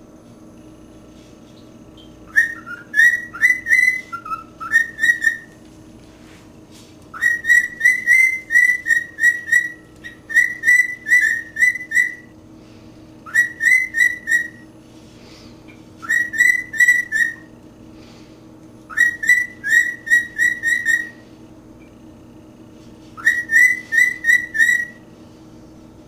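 Pet cockatiel whistling its one song: seven short phrases of quick repeated whistled notes, each phrase a second or two long, with pauses between them.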